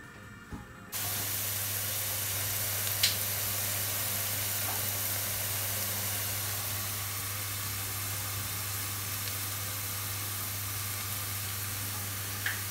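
Sliced red onions sizzling steadily in hot oil in a steel pot as they fry toward brown, starting abruptly about a second in. A steady low hum runs underneath.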